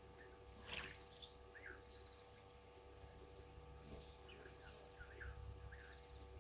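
Insects trilling steadily at a high pitch with short breaks, with scattered brief bird chirps over the top.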